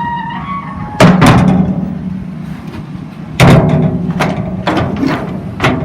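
A series of about six loud, sharp bangs and knocks, each ringing briefly, the two loudest about one second and three and a half seconds in, over a steady low hum.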